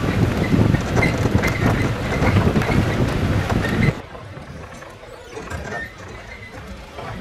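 Open jeep driving on a rough dirt track: engine rumble with the body and frame rattling. About four seconds in it suddenly drops to a much quieter level.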